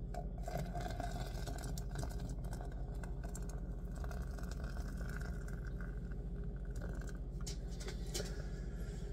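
A spoon stirring coffee grounds and water in a glass French press, with faint scraping and light ticks against the glass, over a steady low hum.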